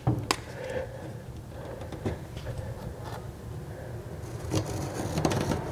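A metal square handled on a textured truck bed, with a few light knocks and scrapes as it is set in place. From about four seconds in, a felt-tip marker scratches along the rough bed surface beside the square as a line is drawn.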